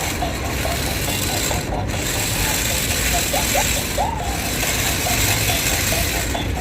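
Toy RC twist climbing stunt car's electric motors and plastic gearbox whirring as it drives, a steady buzzing grind that briefly dips twice.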